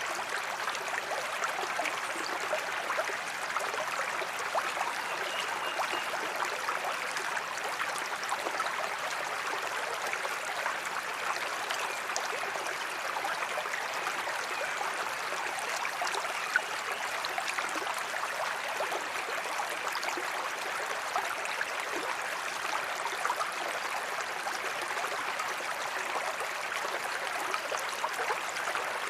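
A small creek running steadily, water trickling and babbling over stones, with a brief sharp tick about sixteen seconds in.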